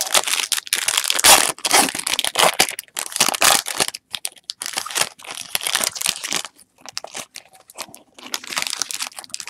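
Foil wrapper of a Topps Chrome football card pack crinkling and tearing as it is opened by hand, in a run of dense crackles that thins out briefly past the middle.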